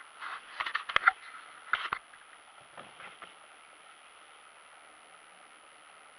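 Handling noise from the camera being turned round: rubbing, rustling and sharp knocks over the first two seconds, loudest about a second in. After that only a faint, steady hiss.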